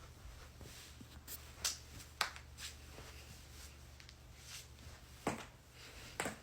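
About half a dozen short, sharp pops and clicks at uneven intervals, the louder ones about two seconds in and near the end: spinal joints cracking as the back and neck are adjusted.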